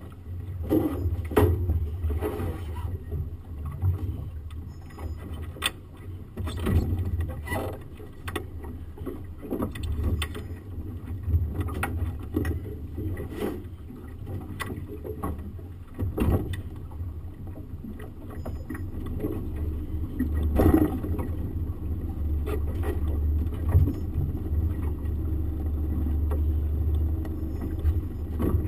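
Outboard motor running at low speed with a steady low hum, which grows louder for the last several seconds, mixed with scattered short knocks and bumps.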